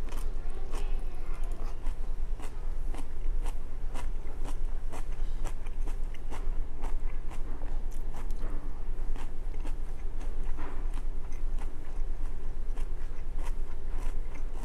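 A man chewing mouthfuls of crunchy stir-fried cabbage and rice close to the microphone, with many short, sharp crunches, over a steady low hum.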